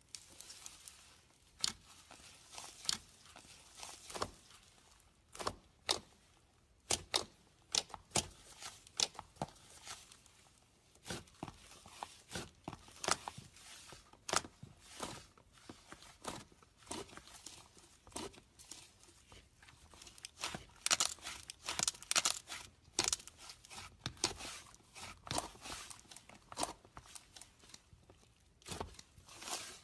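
Slime being squeezed and stretched by hand, making irregular sticky clicks and crackling pops.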